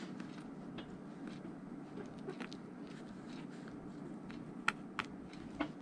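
Faint clicks and ticks of hand-stitching a boot welt, a needle and thread drawn through the leather, with two sharper clicks near the end. A steady low hum sits underneath.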